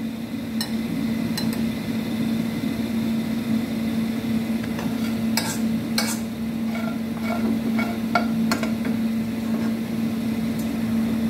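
Metal spoon scraping and clinking against a wok and a ceramic plate as stir-fried noodles are served, with scattered sharp clinks, the loudest about five and six seconds in, over a steady low hum.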